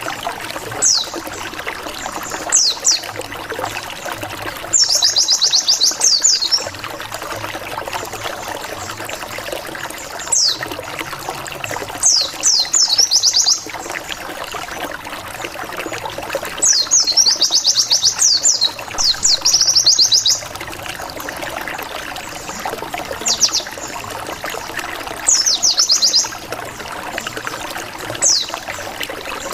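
White-eye (pleci) song played as a lure: bursts of rapid, high 'wit wit wit' notes, each sweeping sharply downward, lasting a second or two and coming every few seconds. Under them runs a steady hiss like running water.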